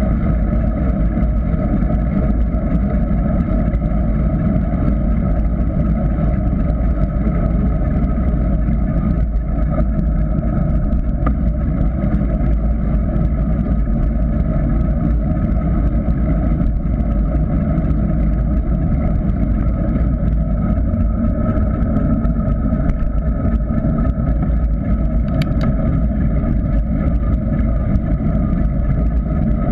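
Wind rush and tyre-on-tarmac rumble on a GoPro Hero 3 mounted on a mountain bike coasting downhill: a loud, steady low rumble with no breaks.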